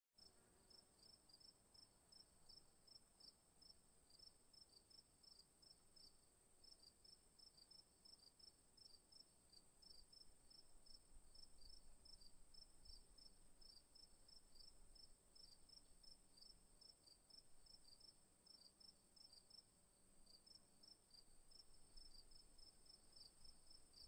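Faint, high insect chirping: a rapid pulsing trill of several chirps a second, broken by short pauses, over a steady high hiss.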